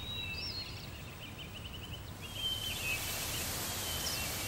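Birds chirping, with a short rapid trill, then about two seconds in a steady rush of water from a waterfall sets in and carries on under the last few calls.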